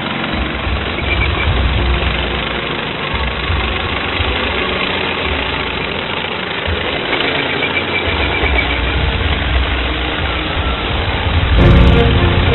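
Remote-control model T-72 tank running across sand: a steady engine-like drone with a low rumble that comes and goes. Music starts about a second before the end.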